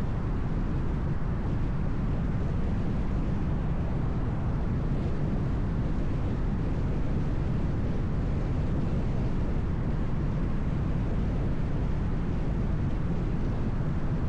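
Car driving on the road: a steady low rumble of tyre and engine noise, even throughout with no sudden events.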